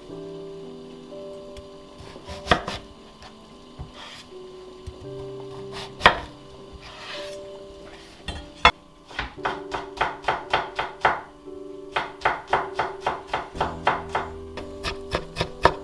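Kitchen knife striking a wooden cutting board: a few single cuts at first, then quick steady chopping at about four strokes a second from about nine seconds in, with a short break partway through. Soft background music of held notes plays underneath.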